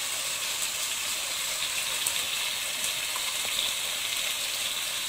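Prawns sizzling in masala in a pot on the stove: a steady frying hiss with a few faint ticks.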